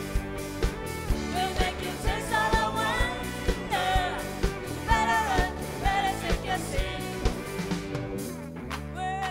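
Pop song with a sung melody over a steady drum beat; the drums drop out near the end.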